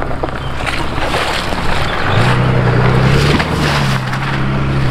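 Mercedes-Benz GLE 350d's six-cylinder diesel engine as the SUV drives past on a dirt track. Its hum comes up about two seconds in and steps up in pitch, over a steady rushing noise.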